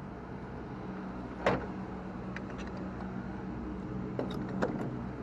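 Lorry's diesel engine idling with a steady low hum, with a few sharp clicks and knocks over it, the loudest about a second and a half in and two more near the end.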